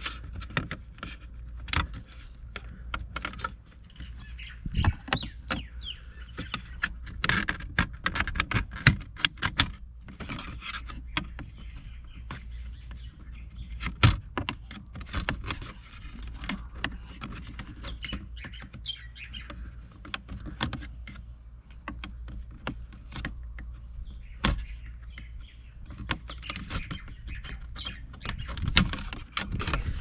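Scattered clicks and knocks of a screwdriver and cotter pin puller prying at the plastic shifter trim plate, popping it off its retaining tabs. Birds chirp in the background.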